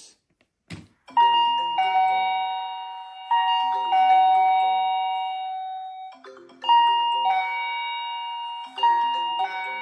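Video doorbell chime ringing after its button is pressed: a short click, then a four-note ringing melody whose notes die away, played twice.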